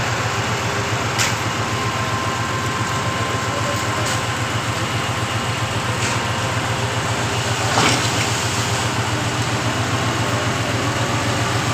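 Concrete pump's engine running steadily with a low, even pulse, and a few sharp knocks about one, four, six and eight seconds in.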